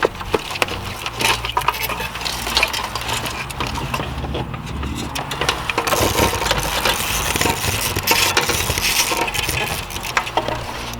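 Dense clicking, clinking and rattling of small hard parts being handled: plastic wiring connectors and harness plugs being unplugged and worked under the dash.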